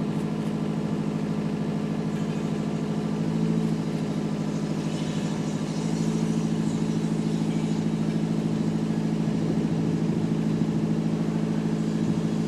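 Diesel shunting locomotive engine running steadily at low revs as a goods train moves slowly along a siding, growing louder about halfway through.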